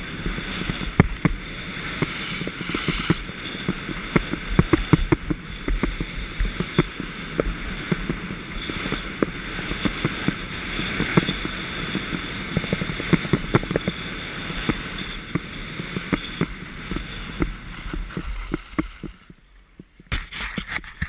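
Skis sliding and scraping over packed snow, with wind rushing over a GoPro camera and many sharp knocks throughout. The noise drops away about a second before the end as the skier slows and stops.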